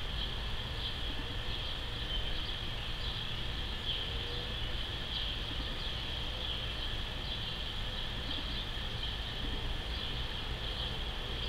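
A steady chorus of insects trilling, high-pitched and unbroken, over a low, even rumble.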